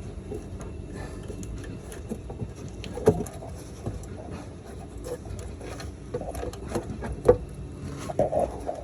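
Scattered small clicks and knocks of fingers fumbling at a plastic fuel-tank wiring connector on a Ford Crown Victoria, trying to press its release tab, over phone-handling rustle and a steady low background rumble.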